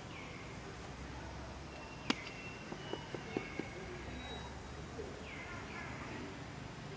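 Outdoor ambience with short high calls that fall in pitch, heard near the start and twice more around five seconds in. There is one sharp click about two seconds in, followed by a few soft taps.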